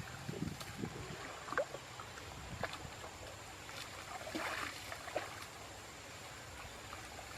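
Water sloshing and splashing in shallow water, with scattered small splashes and knocks and a brief busier splash about four and a half seconds in.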